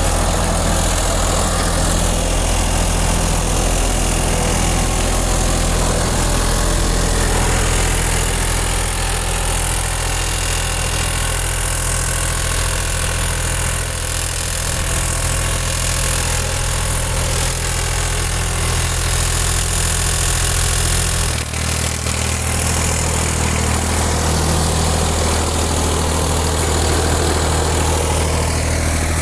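Massey Ferguson 235 tractor engine running steadily at idle with its air filter removed; the intake noise sounds strange to the owner. The engine note dips briefly and shifts slightly about two-thirds of the way through.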